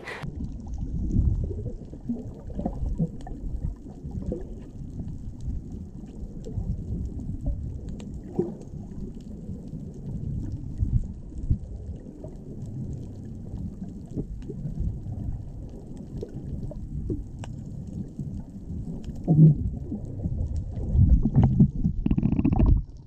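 Muffled underwater water noise: a low, uneven rumble with scattered small pops, swelling into louder gurgling near the end.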